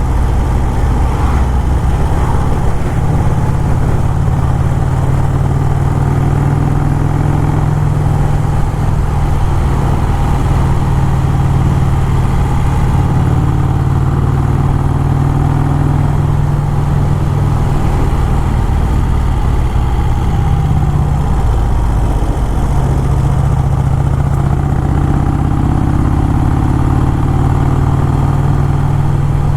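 1951 Vincent Rapide's V-twin engine running steadily under way, its low drone dipping briefly about two-thirds of the way through before settling again.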